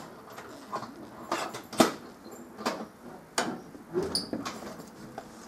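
Scattered short knocks and scuffs, seven or eight of them, the loudest about two seconds in, with a brief high chirp about four seconds in.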